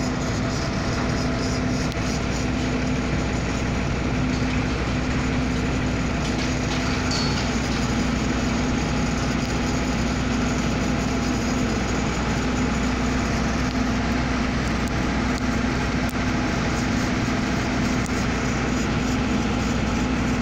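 Sennebogen 5500 crawler crane's diesel engine running at a steady pitch, a constant drone with a low hum, while the crane holds a heavy load on its hook.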